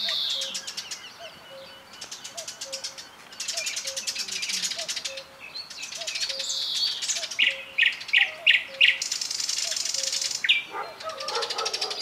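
Nightingale singing: a loud, varied song of fast trills, falling whistles and a run of short repeated notes, with faint low notes repeating underneath.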